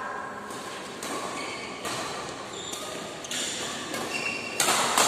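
Badminton rally: a racket strikes a shuttlecock several times, sharp hits roughly a second apart, the loudest near the end, with short squeaks of shoes on the court floor.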